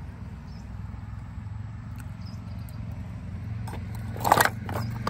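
Roasted Multani mitti (fuller's earth clay) being bitten and crunched close to the microphone: a few loud, sharp crunches starting about three and a half seconds in, over a steady low hum.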